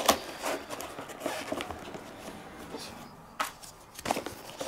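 Cardboard locomotive box being handled and closed on a wooden table: soft rubbing of card with a few sharp taps, the clearest about three and a half seconds in.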